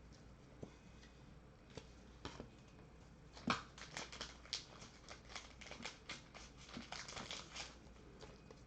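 Trading cards and foil pack wrappers being handled at a table: faint scattered ticks, then a run of quick soft clicks and crinkles for a few seconds.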